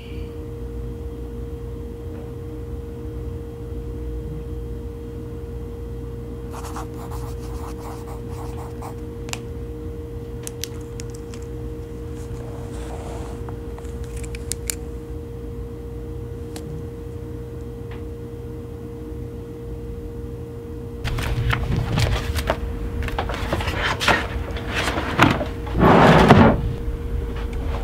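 A steady low hum underneath, with a few light clicks and scratches at a desk. Near the end come louder rustling and knocks as spiral notebooks and a laptop are gathered up and closed on a wooden desk; the loudest thump is about five seconds from the end.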